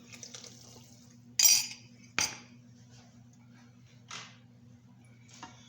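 Spoon clinking and scraping against a cup while cornflour is stirred into water for the soup: a short scrape, a sharp clink about a second later, then a softer scrape. A faint low hum runs underneath.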